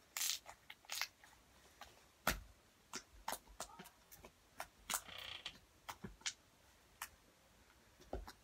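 Crunchy bead slime being stretched and squished by hand. It gives irregular small crackles and clicks from the beads inside, with a brief squelchy hiss about halfway through.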